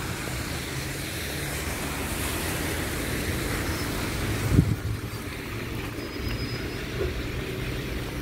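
MAZ-203 city bus running its diesel engine steadily as it pulls up alongside on a wet road, with a hiss of spray and wet road over it. A short thump about four and a half seconds in is the loudest moment.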